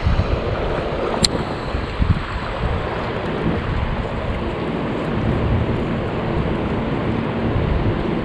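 Wind buffeting the microphone over the steady rush of river water, with one sharp click about a second in.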